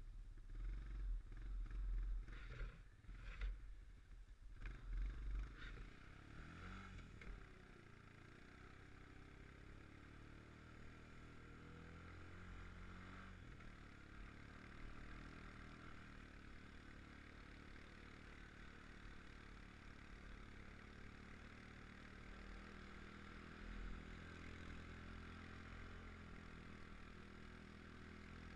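2013 Honda Recon ATV's single-cylinder engine running steadily as it rides along. Low rumbling buffeting on the microphone over the first five seconds or so.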